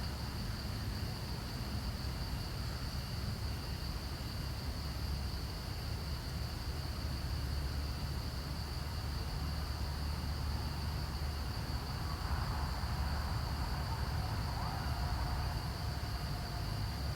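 Steady high-pitched drone of insects, crickets or cicadas, over a low rumble, with no break in it.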